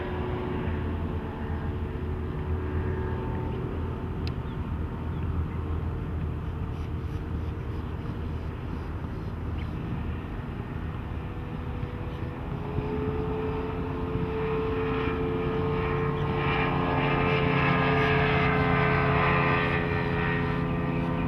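Yamaha 200 hp two-stroke V6 outboard running the boat under way, a steady engine drone. About two-thirds of the way in its pitch and loudness climb as the throttle opens.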